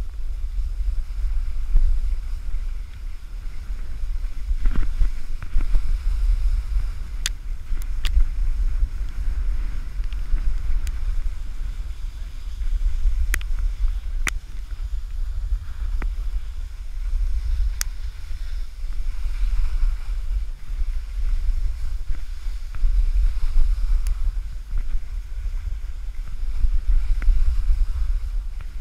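Wind buffeting the GoPro's microphone as a skier runs downhill, a steady low rumble, with the skis hissing over the snow and a few sharp clicks.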